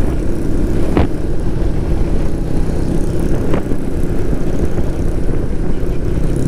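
Motorcycle riding at a steady pace: a constant engine drone under a heavy low rumble of wind on the microphone, with two brief ticks about a second and three and a half seconds in.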